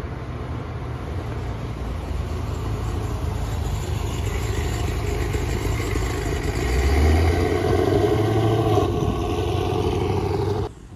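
Cammed V8 of a Chevrolet SS running at low speed as the car rolls up and past close by, getting louder as it nears. The sound cuts off suddenly near the end.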